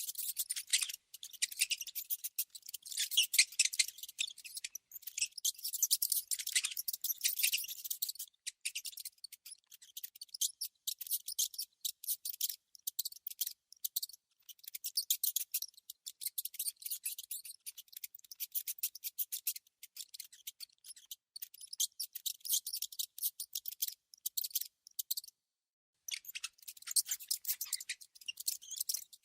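Rodents making rapid high-pitched clicking and scratching sounds in fast runs, broken by short pauses and one silent gap of about a second near the end.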